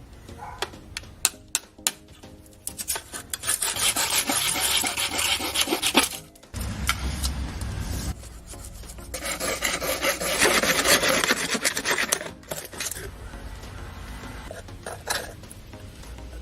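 Rasping, scraping work on PVC pipe, in two long spells of a few seconds each, with a few sharp clicks and knocks of handling in the first couple of seconds.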